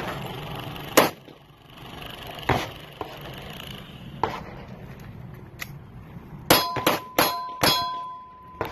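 Pistol shots: one about a second in, another about a second and a half later, then a quick string of about five near the end. A steady metallic ringing tone hangs on through the fast string.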